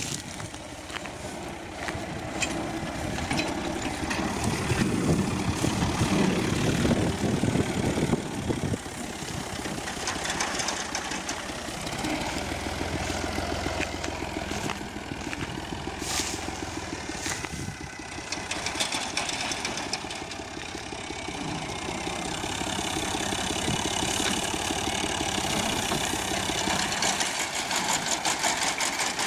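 Fiat 480 tractor's diesel engine running steadily while driving its front-mounted wheat reaper through standing wheat, with a fast, even mechanical clatter from the reaper.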